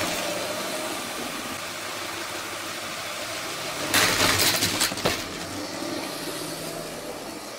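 LEGO train motors running steadily, with the plastic wheels rattling along plastic track. About four seconds in, the Horizon Express locomotive crashes into the derailed green passenger train, giving about a second of loud plastic clattering and knocks.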